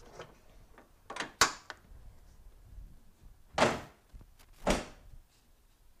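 Hood of a 2004 Toyota Corolla E120 being closed to test a newly replaced hood latch: a sharp metallic click about a second and a half in, then two heavy thuds about a second apart as the hood comes down and the latch catches.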